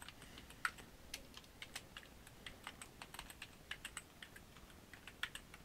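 Typing on a computer keyboard: a quick, irregular run of faint key clicks as an email address is typed in.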